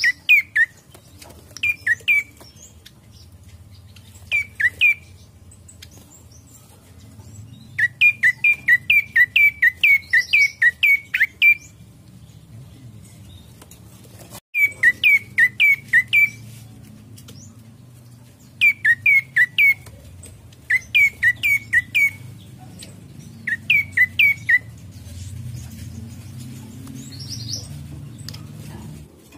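Prenjak coki (a tailorbird) calling: loud, sharp chip notes, each sliding quickly down in pitch, repeated in fast runs of two to ten with pauses between the runs. A fainter, higher twitter comes twice.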